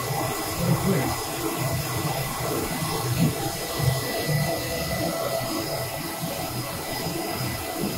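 Focus Alpha Max 6250 UV flatbed printer running: a steady machine noise with a thin high whine as its flatbed table drives out after printing a nozzle check.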